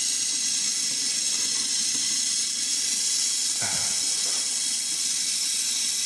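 Gas torch flame hissing steadily while it heats the copper refrigerant pipe joints at a freezer compressor to unsolder them.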